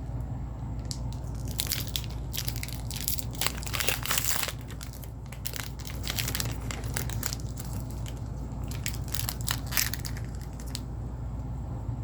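Foil booster-pack wrapper crinkling and crackling in quick repeated bursts as it is handled and opened; the crackling stops near the end.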